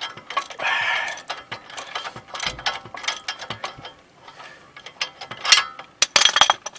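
Hand socket ratchet clicking in irregular runs as it is swung back and forth, backing out the already-loosened lower bolt of a brake caliper bracket. The densest, loudest run of clicks comes near the end.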